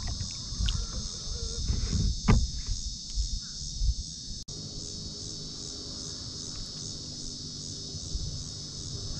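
Steady chorus of insects, a high pulsing drone, with a few knocks and bumps in the first half.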